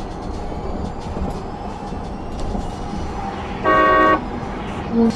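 Car horn sounding once for about half a second, a few seconds in, over steady tyre and road noise at highway speed.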